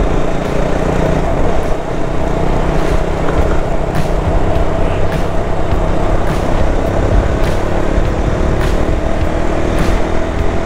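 Motorcycle engine running at a steady cruising speed, its pitch holding nearly level, mixed with wind rushing over the rider's camera microphone.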